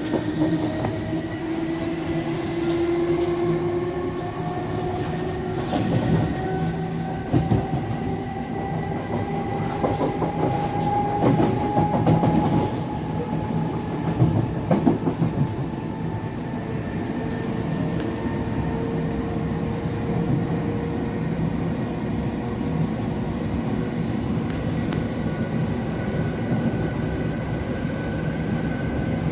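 Electric multiple-unit train accelerating: the traction motor whine rises steadily in pitch over the first dozen seconds, with wheels clacking over rail joints and points in the middle. It then runs on at a steadier speed with a rumbling ride and a steady whine.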